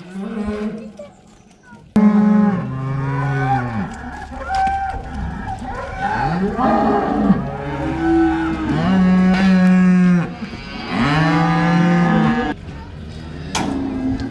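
Several beef suckler cattle mooing, long calls overlapping one after another, starting about two seconds in.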